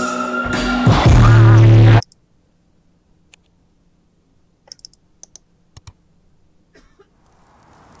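Loud hip-hop music with heavy bass cuts off abruptly about two seconds in. Near silence follows, broken by a few scattered sharp clicks over a faint low hum, and a soft hiss rises near the end.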